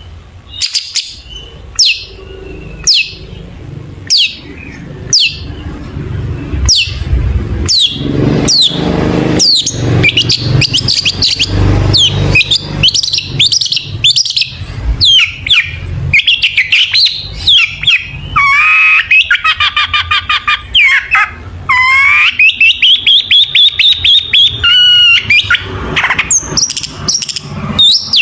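Long-tailed shrike singing a varied mimicry song: sharp downward-sweeping calls about once a second at first, then building into rapid chattering and long, fast trills in the second half.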